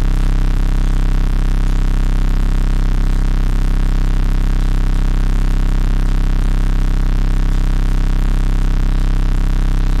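Car subwoofer in a wooden box playing a sustained deep bass tone at large cone excursion, heard as a loud, steady, buzzy drone with a slight pulse.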